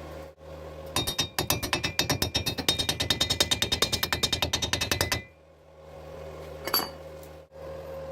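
Rapid metal-on-metal tapping, about nine or ten strikes a second for around four seconds, with the thin steel ringing after each strike: typical of a hammer knocking at thin square steel tube at a weld. One more single clink follows a moment later.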